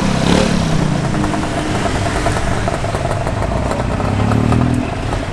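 Small engines of tuk-tuks and motorbikes running in close street traffic, one revving up about four seconds in.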